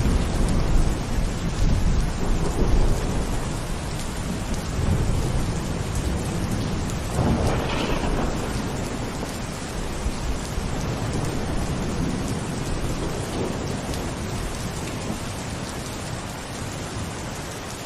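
Steady rain falling, with low thunder rumbling underneath and a brief louder surge about seven seconds in; the level eases slightly toward the end.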